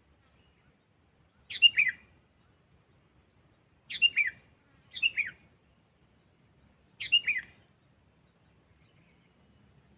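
Sooty-headed bulbul (kutilang) calling: four short phrases of quick notes that fall in pitch, a second or two apart.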